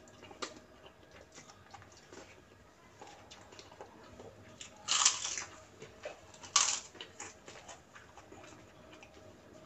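Close-up eating sounds: soft chewing and small wet mouth clicks. Two loud crisp crunches about a second and a half apart come as a kerupuk (Indonesian fried cracker) is bitten.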